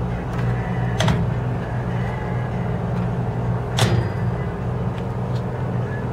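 A steady low hum with two sharp knocks, one about a second in and one near four seconds in.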